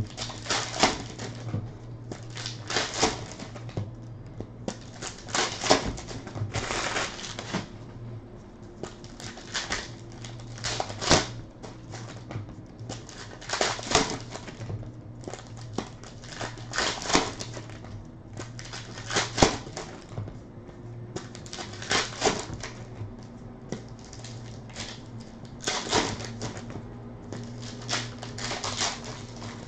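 Irregular short clicks and crinkles of hands handling items on a table, a cluster every second or so.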